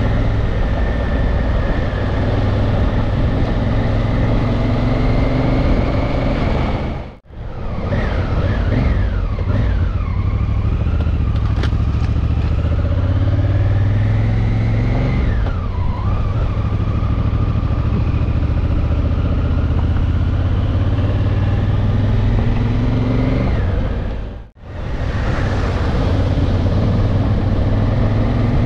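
Honda Africa Twin's parallel-twin engine running under way on a dirt road, its pitch rising and falling with throttle and gear changes. The sound cuts out briefly twice, about seven seconds in and again about twenty-four seconds in.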